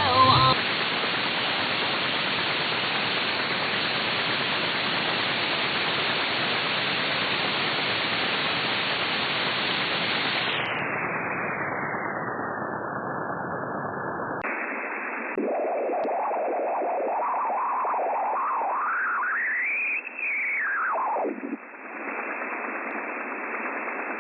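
Shortwave receiver static: a steady hiss between stations. About ten seconds in the hiss narrows and dulls. A few seconds later it turns thinner, and a warbling whistle glides up to a high pitch and back down as the tuning sweeps across a signal.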